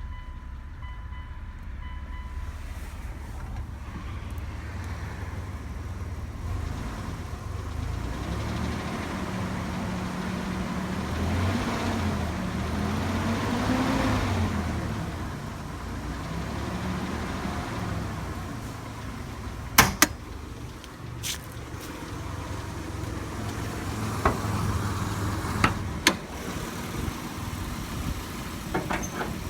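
A 2003 Mitsubishi Montero Sport running, with a low hum that rises in pitch to a peak about halfway through and then falls away. Sharp clicks or knocks come twice close together near two-thirds of the way in, and again a few seconds later.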